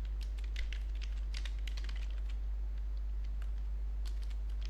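Computer keyboard keys clicking in irregular quick runs of keystrokes as a few words are typed, over a steady low hum.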